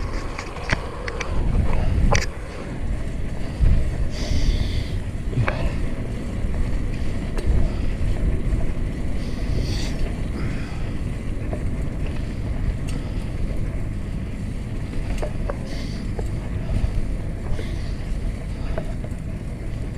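Wind buffeting the microphone of a GoPro on a moving fixed-gear bike, with steady low rumble from the tyres rolling on asphalt. A few sharp clicks and rattles from the bike come through now and then.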